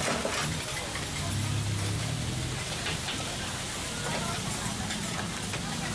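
Steady hissing of a street-food noodle stall, the wok frying, with people talking in the background and a low hum underneath.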